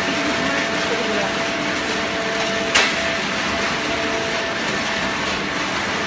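Hydraulic power unit of a horizontal baling press running with a steady hum, and a single sharp clank about halfway through.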